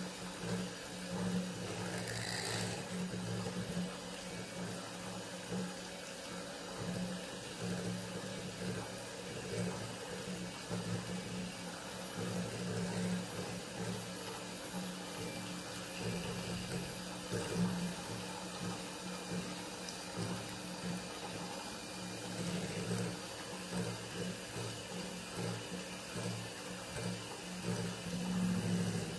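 Electric hand mixer running steadily, its twin beaters whisking a thin cream-cheese batter in a glass bowl: an even motor hum that wavers a little as the beaters move through the mix.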